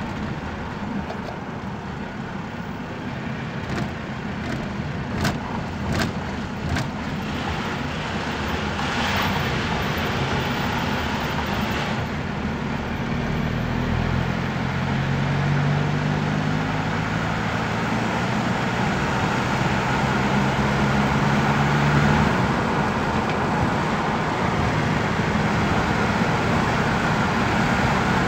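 Car engine and road noise heard from inside the cabin, growing steadily louder as the car picks up speed. There are a few light clicks several seconds in, and a low engine drone through the middle.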